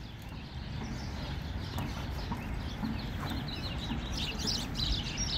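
Small songbirds chirping in quick repeated notes, getting busier in the last couple of seconds, over a steady low background rumble.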